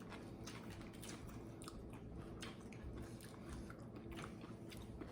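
Close-up chewing and biting of food, with irregular small crunches and wet clicks of the mouth.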